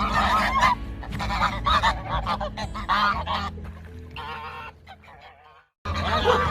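A flock of waterfowl calling rapidly over one another, over a steady low drone. The sound cuts out briefly near the end, and a new burst of calls starts straight after.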